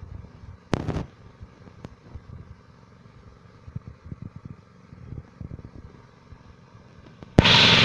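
Small engine of a rice threshing machine running with an uneven low putter. About seven seconds in, a much louder, steady rushing noise cuts in suddenly.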